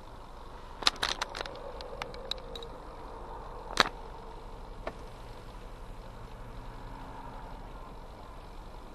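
Steady car cabin noise with the engine idling in slow traffic. There is a cluster of sharp clicks about a second in and a single louder click near four seconds.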